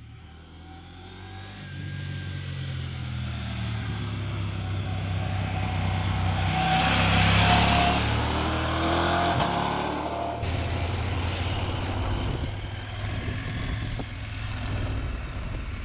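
Husqvarna Norden 901's parallel-twin engine as the bike rides past through a bend, its note swelling to the loudest point about halfway through and then fading as it goes away. About ten seconds in the sound switches abruptly to the engine heard steadily from on the bike.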